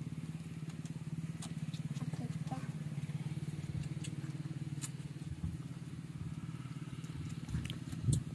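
A small engine running steadily, an even low hum, with a few faint clicks over it and a soft knock near the end.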